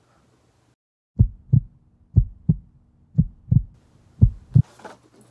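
Heartbeat sound effect: four slow double thumps, lub-dub, about one a second, starting about a second in after sudden silence.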